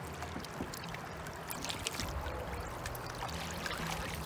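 River water sloshing and trickling around a landing net dipped in the current, with scattered small splashes.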